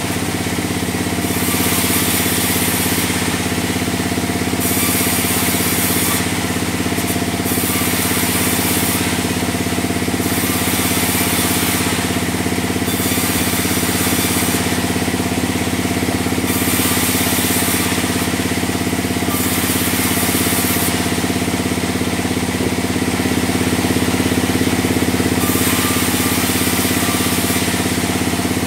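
Large log band saw running steadily with a constant machine hum, and a high hiss that comes and goes every second or two as the blade cuts through a log.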